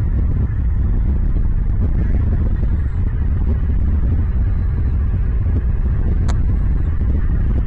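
Steady loud low rumble of wind buffeting an outdoor microphone, with one sharp click about six seconds in.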